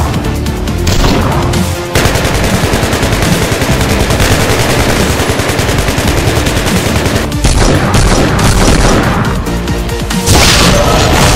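Rapid bursts of automatic-gunfire sounds, a dense run of shots through the middle and another burst near the end, over loud background music.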